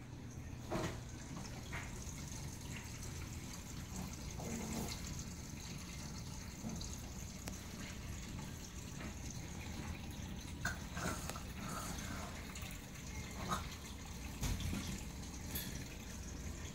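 Aquarium water trickling and dripping faintly in a sump filter system, over a steady low hum, with a few small drips or splashes scattered through it.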